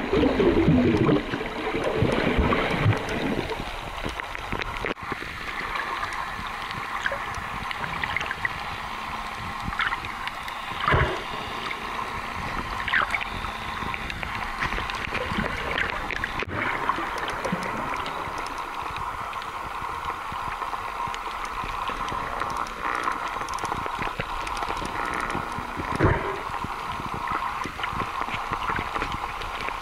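Water noise: a steady hiss with scattered clicks and pops, louder and gurgling for the first few seconds.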